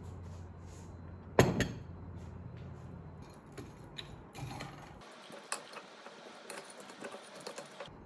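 A metal spoon clinking against a mug, with one loud ringing clink about a second and a half in, then a spoon scraping and tapping in a glass bowl, many small clicks in the last few seconds.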